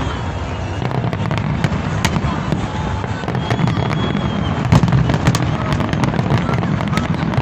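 Fireworks display going off: a continuous low rumble of launches and bursts with many sharp cracks and pops scattered throughout, the loudest bangs coming a little before five seconds in.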